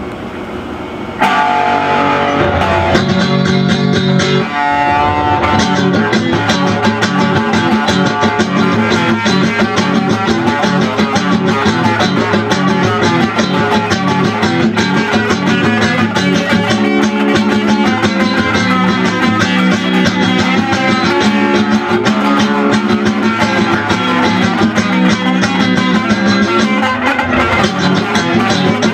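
Electric guitar playing rock-style music, coming in loudly about a second in and going on as a dense stream of notes over sustained lower notes.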